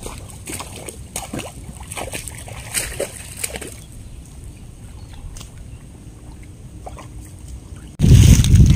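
Sloshing and small, irregular splashes of people wading and groping in shallow muddy water, busiest over the first few seconds. Near the end a sudden loud low rumble cuts in.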